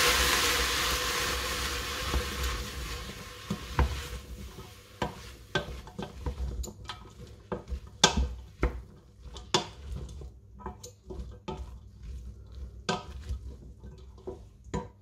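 Wooden spoon stirring red cabbage and onions in a stainless steel pot, knocking and scraping against the pot's sides at irregular intervals. The frying sizzle is loud at first and dies down over the first few seconds.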